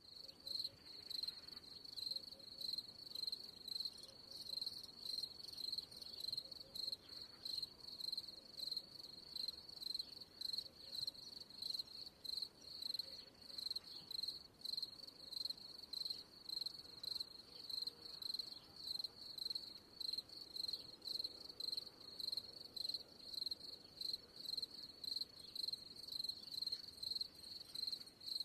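A cricket chirping steadily: a high, even trill pulsed about twice a second.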